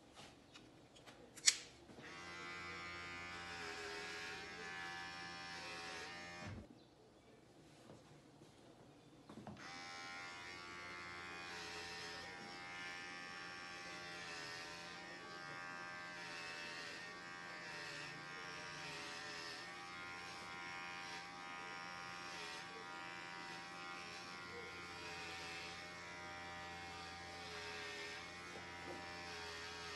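Electric hair clippers buzzing steadily as they cut hair, after a sharp click just before they start. They go quiet for about three seconds a few seconds in, then run on steadily.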